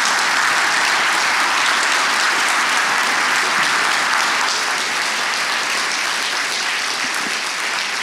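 Large audience applauding steadily, dense clapping that eases off slightly near the end.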